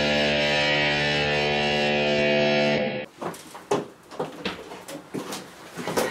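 A loud held guitar chord on the soundtrack that cuts off abruptly about three seconds in, followed by scattered knocks and thumps in a small room as its door is opened.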